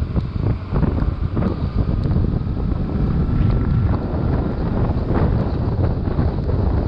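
Wind buffeting the microphone on a BMW R1150RT motorcycle riding in rain. Its boxer-twin engine runs underneath, with tyres hissing on the wet road and scattered small ticks.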